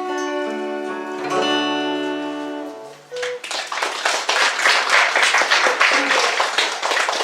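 A song's instrumental ending, with sustained chords over guitar, closes on a final low chord about three seconds in. The audience then applauds.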